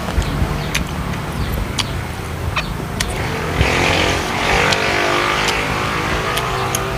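A motor vehicle's engine running nearby over a steady low rumble, growing louder from about three and a half seconds in and easing off near the end. A few sharp clinks of a metal spoon and fork against a ceramic bowl.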